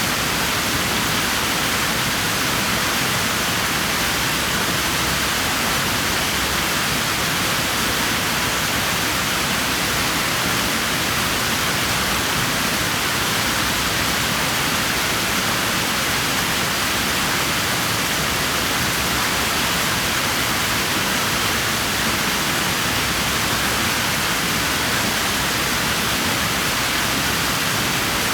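Water in a swimming pool making a steady, even rushing hiss that does not change.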